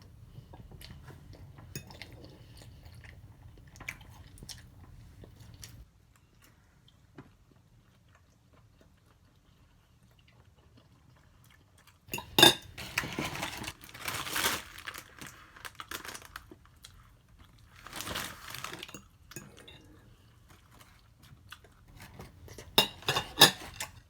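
Close-miked eating of Chinese takeout: chewing, with utensils scraping and clinking against the dish in a few loud bursts about halfway through and a run of sharp clicks near the end.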